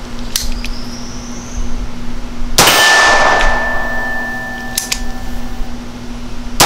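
Bond Arms Stinger 9mm double-barrel derringer fired twice with a 147-grain subsonic hollow-point load. The first shot comes near the middle, the second about four seconds later at the very end, and each sharp report is followed by a long metallic ringing decay.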